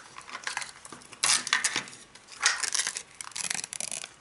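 A printed wrapper being peeled and torn off a small plastic Mini Brands toy capsule: irregular crinkling and tearing rustles, loudest in bursts a little after one second and about two and a half seconds in.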